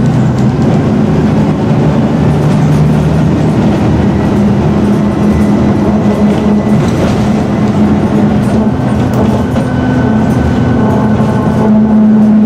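Scania N113DRB double-decker bus in motion, its rear-mounted diesel engine running over a steady rumble. The engine note shifts up and down in pitch as the bus changes speed.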